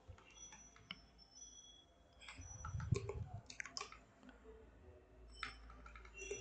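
Faint, scattered clicks of computer keyboard typing while code is being written.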